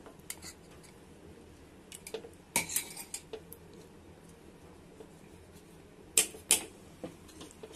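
Wooden spatula stirring and knocking against a metal pot of thickening custard: scattered light clicks and scrapes, with a few sharp knocks, the loudest pair about six seconds in.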